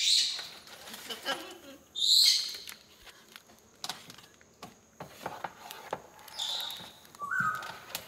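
Harlequin macaw giving three short high calls, the loudest about two seconds in, and a brief whistle near the end, with light clicks of its claws and beak on a plastic pet carrier as it climbs inside.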